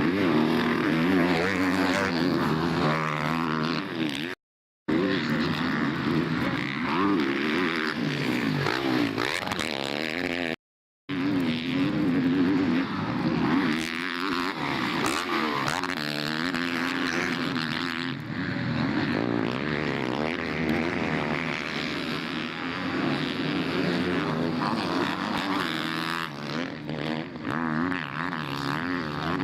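Motocross bike engines racing, revving up and down. The sound cuts out completely twice for about half a second.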